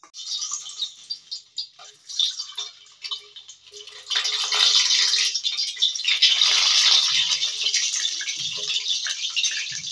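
Hot cooking oil sizzling and spluttering as whole peeled boiled eggs are added to the pan. The crackling comes in short bursts at first, then turns into a dense, steady sizzle about four seconds in.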